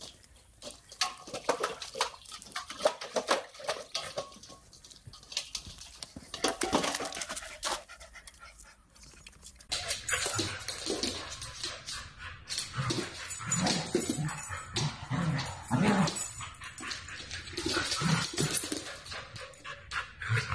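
A puppy lapping from a water bowl: a run of short wet clicks. About ten seconds in, dogs playing, with repeated short barks and whining calls.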